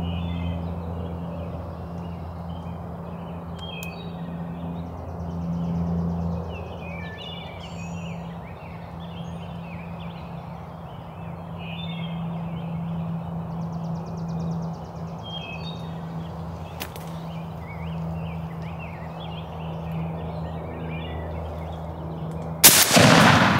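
Short, scattered calls from wild turkeys and other birds over a steady low hum. About a second before the end, a single loud shotgun blast goes off and echoes briefly: the shot that kills the gobbler.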